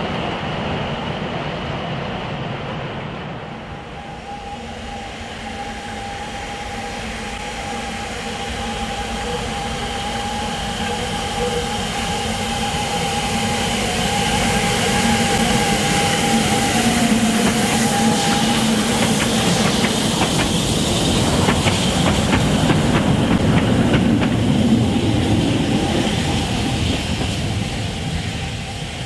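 Narrow-gauge steam train passing on the Ffestiniog Railway: steel wheels clicking over rail joints with a thin, steady squeal from the wheels, growing louder as it approaches and loudest past the middle, with a quick run of clicks as it goes by.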